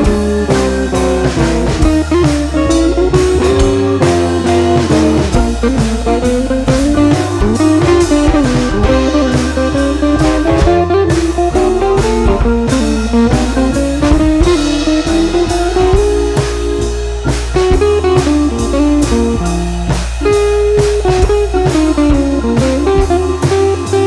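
Background music: a blues-style guitar over a steady drum beat.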